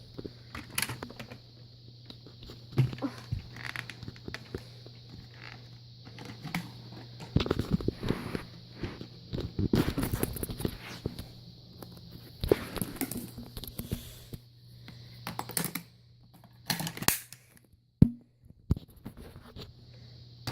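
Irregular rustling, crinkling and clicking, like things being handled close by, over a steady low hum.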